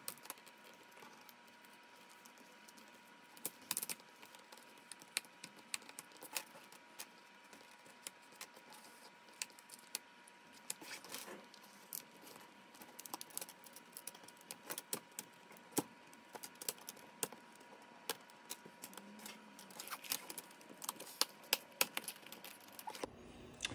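Faint, irregular small plastic clicks and snaps as the plastic screen bezel of an HP EliteBook 840 G4 laptop is pried and worked loose from its retaining clips and adhesive by hand, over a low hiss with a faint steady tone.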